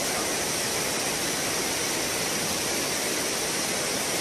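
Floodwater rushing down a street in heavy rain, a steady, unbroken rush of water noise.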